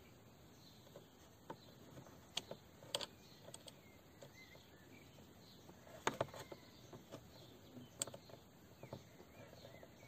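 Faint, scattered clicks and small scrapes of a precision screwdriver working a screw in the plastic ignition switch box of a Škoda Felicia, with the sharpest clicks about a third of the way in, just past the middle, and near the end.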